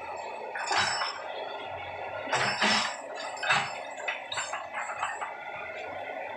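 Excavator at work: a steady machine hum, broken by several sharp metallic clanks and knocks, the loudest in the first four seconds.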